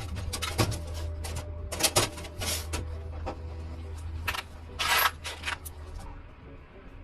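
A series of sharp metallic clinks and clatters, as of metal parts or tools being handled and set down, with a steady low hum that fades partway through. Background music plays underneath.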